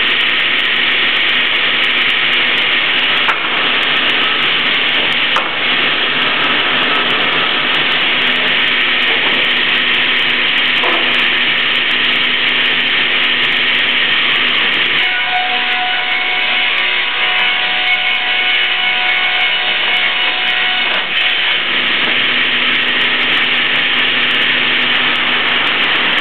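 Ustunkarli board edger (multi-rip edging saw) running loudly, its saw blades and ribbed feed rollers spinning with a steady noise and hum. From about 15 to 21 seconds in, the hum drops out and several higher steady ringing tones come in for a few seconds.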